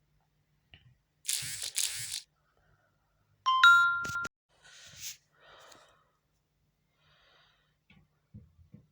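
Kitchen utensil sounds while mixing ingredients: two short rustling hisses, then a sharp ringing clink of a utensil against a bowl about three and a half seconds in, followed by softer scraping and a few light knocks near the end.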